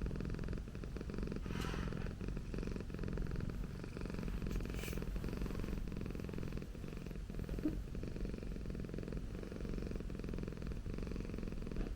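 Persian cat purring steadily.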